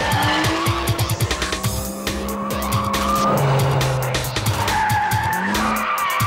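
Ferrari 575's front-mounted V12 sports car driven hard, its tyres squealing through corners, under backing music.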